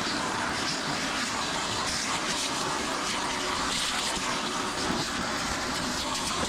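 Vacuum cleaner running steadily with an even rushing noise, sucking lint out of a clothes dryer's cabinet.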